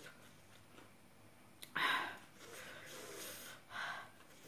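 A woman breathing hard through her nose and mouth: one loud snort-like breath about two seconds in, softer breathing after it, and another sharp breath near the end, her reaction to the heat of spicy papaya salad.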